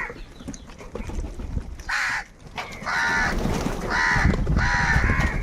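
Crows cawing: four harsh caws starting about two seconds in, the last one longer than the others.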